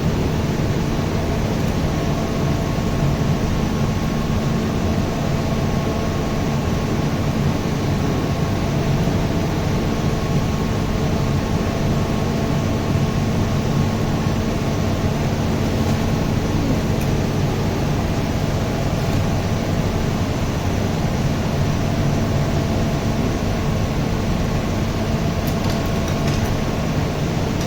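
Running machinery giving a steady, unbroken hum and drone with a constant low tone and fainter higher tones.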